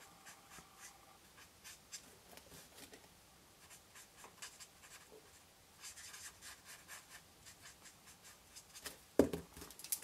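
Faint, repeated scratchy strokes of a Stampin' Blends alcohol marker tip working colour into a stamped image on cardstock, with one sharper knock near the end.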